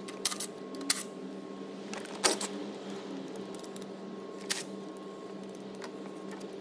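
A few sharp clicks and knocks of a tool and loose nuts being handled while an engine's plastic top cover is unbolted, the loudest two about one and two seconds in, over a steady low hum.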